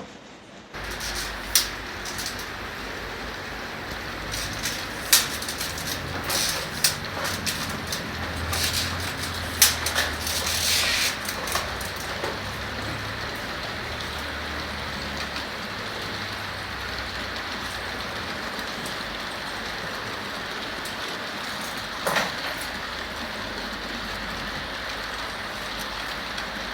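Freight train running on the track: a steady rumble with irregular clanks and knocks, most of them in the first half and one more near the end.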